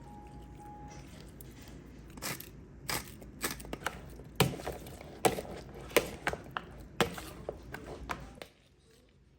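Kitchen work: a string of sharp knocks and scrapes, about two or three a second, over a steady low hum that cuts off near the end.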